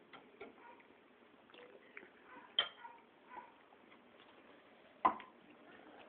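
Scattered light clicks and taps at an uneven pace, with two sharper knocks about two and a half seconds apart.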